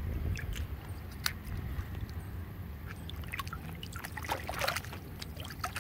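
Muddy floodwater sloshing and splashing as a foot in a rubber slide sandal swishes through a rain-filled puddle. Scattered small sharp splashes, busiest about four and a half seconds in, over a steady low rumble.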